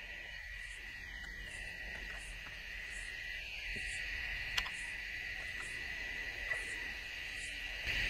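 Steady, high-pitched chorus of insects, with one sharp click a little past halfway.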